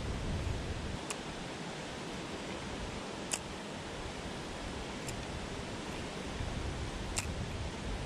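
Steady rush of a shallow mountain stream running over rocks, with four short, sharp clicks about two seconds apart.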